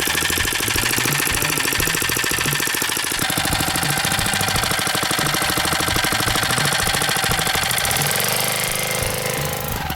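Small 79cc single-cylinder engine of a homemade belt-driven motorized bicycle running hard with a rapid, even firing rhythm, its note shifting about three seconds in and again about eight seconds in.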